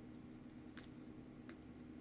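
Near silence: a steady low hum with two faint, short clicks, one a little under a second in and one about a second and a half in.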